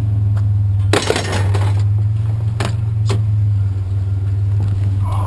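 Truck engine idling steadily. About a second in, scrap metal rattles in a short crash, followed by two sharp clanks a little later.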